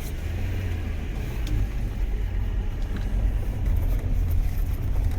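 Car driving along a mountain road, heard from inside the cabin: a steady low rumble of engine and road noise.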